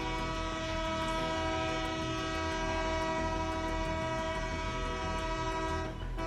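Locomotive air horn held in one long chord of several tones, with a low rumble underneath. The horn dips briefly near the end, then sounds again.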